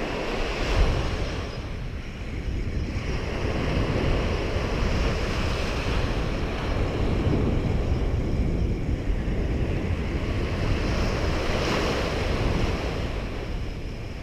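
Small ocean waves breaking and washing up the sand, with wind buffeting the microphone; the wash swells and eases a few times.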